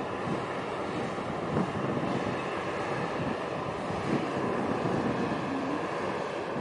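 Wind buffeting the microphone over a steady machinery rumble and faint hum from a passing container ship.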